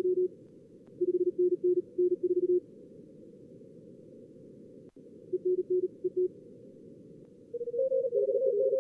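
Morse code (CW) from a contest logger's simulator: quick keyed tones at about 38 words per minute, in short groups with gaps between, over a steady low hiss of simulated receiver noise. Near the end several callers' signals overlap at slightly different pitches.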